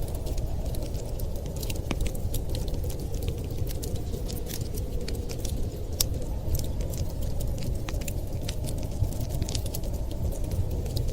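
Wood fire crackling in a fireplace, with many irregular sharp pops and snaps over a steady low rumble of storm wind.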